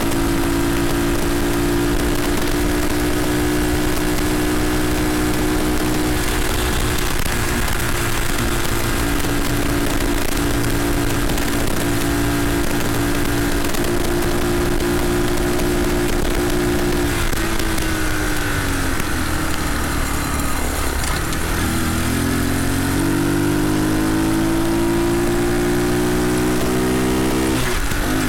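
Red Cat CT70-clone mini bike's small single-cylinder engine running under way at a steady pitch. It drops as the throttle is eased off about two-thirds of the way through, then climbs again as it picks up speed, with a quick dip near the end as it shifts up a gear.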